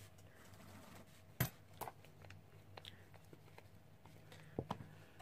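A few sharp clicks and taps of small nail-art tools being handled and set down on the table, the loudest about a second and a half in, over a faint low steady hum.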